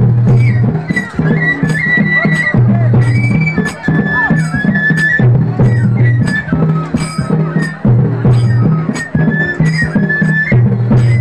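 Hojagiri dance music played loud: a flute melody over a steady beat of drum and sharp, cymbal-like strokes.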